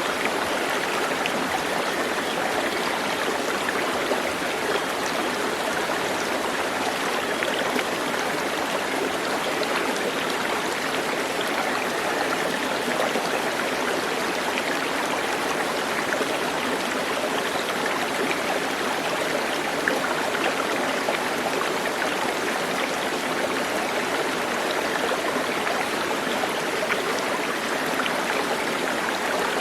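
A stream running steadily, a dense, even rush of flowing water with no change in level.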